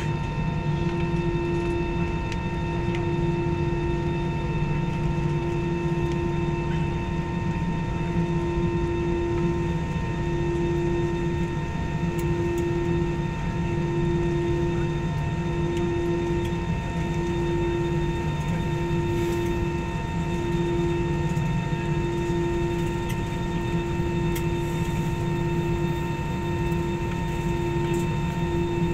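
Cabin noise of a taxiing Citilink airliner: a steady drone from the engines with several fixed whining tones, and a low hum that swells and fades about every second and a half to two seconds.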